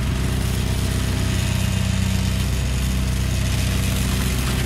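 A motor running steadily: an even, low engine-like hum with a constant hiss over it.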